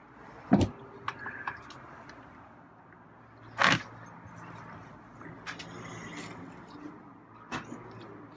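Handling noises of someone getting food ready: a heavy thump about half a second in, a few light clicks, a short scraping rush near the middle, then more clicks and a knock near the end.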